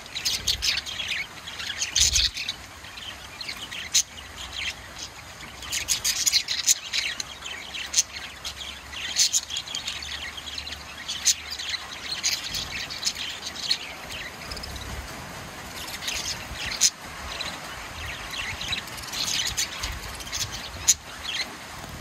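A flock of budgerigars chirping and chattering, many short high calls coming in bursts with brief lulls between.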